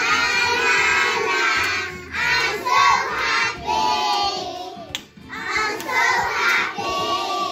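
A group of young children singing together in phrases, with a short break about five seconds in.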